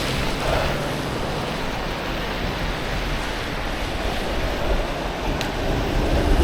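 Steady rush of city traffic and wind on a snowy street, getting a little louder near the end.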